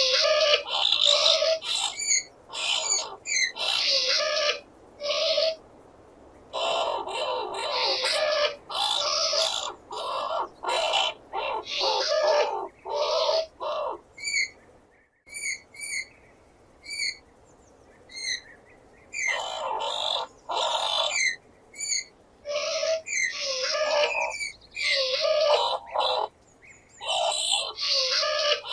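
Skunk squealing in repeated shrill bursts, mixed with short sharp chirps. About halfway through the long squeals drop out and only the short chirps are heard for several seconds before the squealing resumes.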